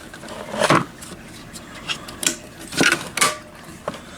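Fire alarm pull station being reset: several sharp clicks and knocks as its cover is opened and snapped shut.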